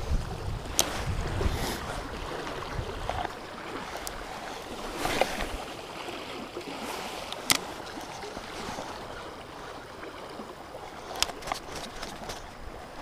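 Steady rush of the river's flowing water, with a low rumble on the microphone for the first three seconds. A few sharp clicks and ticks are scattered through, about seven in all.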